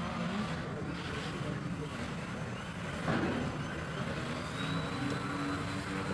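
Electric motor and propeller of a small foam radio-controlled model airplane buzzing in flight, the pitch shifting up and down with the throttle.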